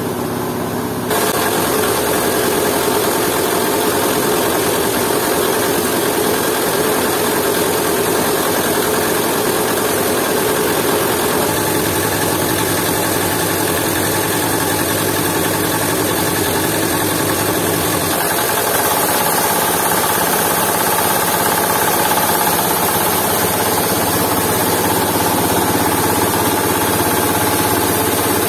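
Jiangdong 8 hp single-cylinder diesel engine running steadily, driving a coffee grinder that is hulling dried coffee cherries. The sound gets louder about a second in.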